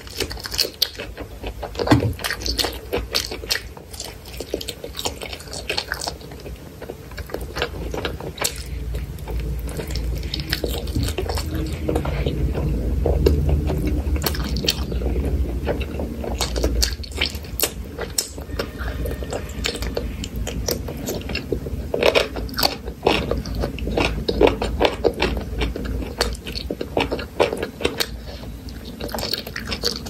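Eating sounds: a bite into a fresh cucumber slice and crunchy chewing, then chewing chicken-leg curry and rice eaten by hand, with wet mouth sounds and many crisp clicks and crackles.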